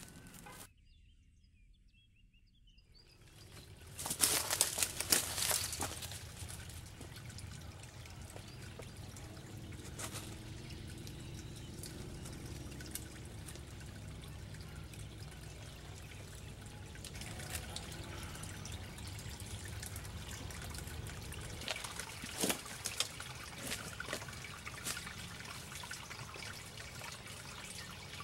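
Near silence for about two seconds near the start, then a small woodland stream trickling steadily, loudest a few seconds in, with a few sharp clicks later on.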